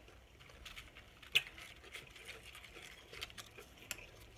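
Quiet eating sounds: a metal spoon stirring and tapping in a glass bowl of taco soup, with chewing and a few soft clicks. One sharper tap comes about a second and a half in.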